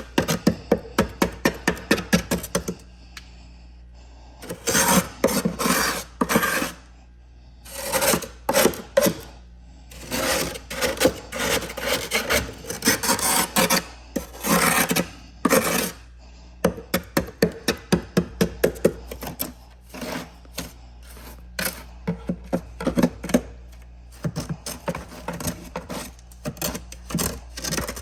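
Frost being scraped off the inside of a freezer: runs of quick, sharp scraping strokes, about four or five a second, alternating with denser stretches of continuous scraping, over a steady low hum.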